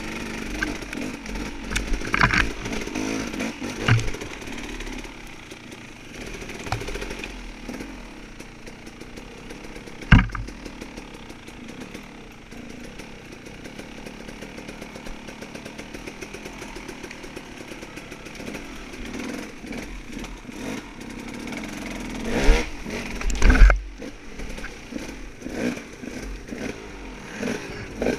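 Off-road dirt bike engine running and revving up and down while riding, broken by several sharp thumps, the loudest about ten seconds in and two more near the end.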